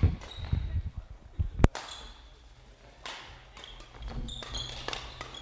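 Badminton doubles rally: sharp racket-on-shuttlecock hits, the loudest about a second and a half in, with thumps of players' footwork on the court floor.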